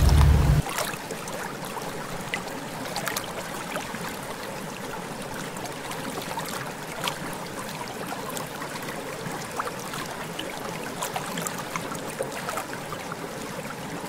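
Water lapping and trickling, with many small irregular splashes and drips. A low steady rumble cuts off suddenly about half a second in.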